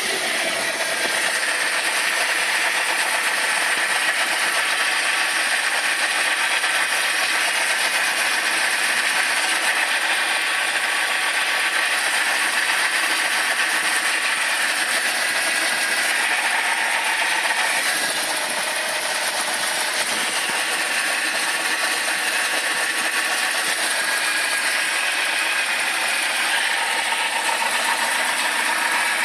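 BMW 318i's M43 four-cylinder engine running steadily with a rattling noise that appeared after the engine overheated from a failed water pump; the owner does not know where it comes from.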